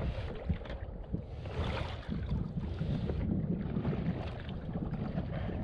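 Wind buffeting the microphone on a kayak at sea, a steady uneven rumble, with short bursts of water splashing, the main one about one and a half to two seconds in and another around three seconds.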